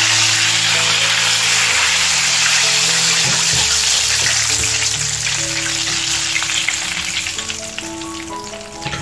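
Flour-coated chicken drumsticks deep-frying in vegetable oil in a pan: a steady, dense sizzle that eases off a little near the end.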